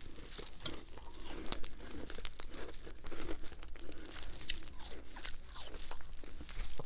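Someone chewing a mouthful of freezer frost and ice, with irregular crunching and sharp cracks several times a second.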